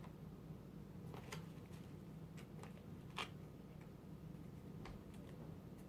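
Faint handling noise: a few small clicks, the sharpest about three seconds in, over a low steady hum.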